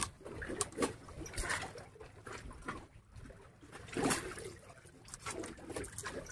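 Water trickling and splashing, with scattered light knocks.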